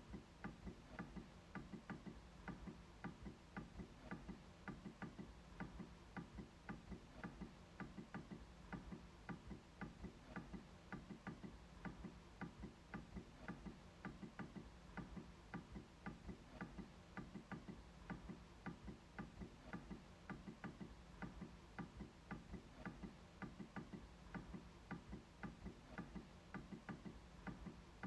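MacBook trackpad being clicked over and over, faint, short clicks at about three a second.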